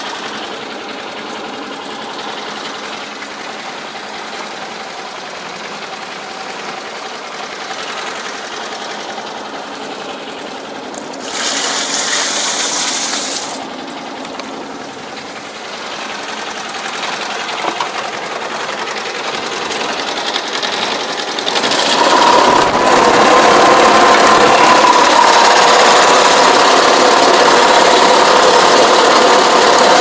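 Small engine of a power pesticide sprayer running steadily, then picking up speed and running louder about 22 seconds in, with a steady hum. A brief rush of hiss about 11 seconds in lasts a couple of seconds.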